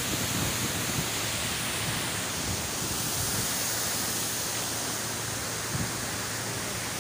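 Steady rush of water from a waterfall running high after a typhoon, an even hiss-like noise with no breaks.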